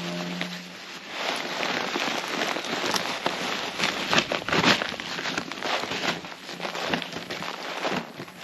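Soil and potatoes tipped out of a potato grow bag onto a tarpaulin: the bag rustles and crinkles while loose soil patters and crackles down in uneven spills, heaviest about halfway through.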